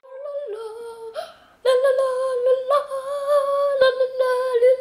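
A high voice humming a simple tune in long, held notes. A fainter note slides down in the first second, then the louder held notes start about a second and a half in, with short breaks near the end.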